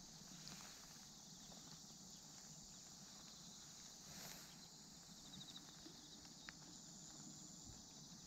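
Near silence: faint outdoor ambience with a steady high hiss and a few faint clicks.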